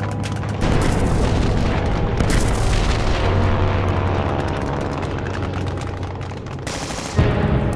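Battle sound effects: explosions and rapid gunfire over a steady low drone, with a sudden loud boom about seven seconds in.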